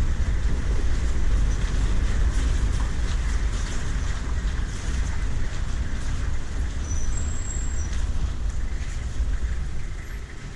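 Steady low rumble of a moving road vehicle, with wind buffeting the microphone.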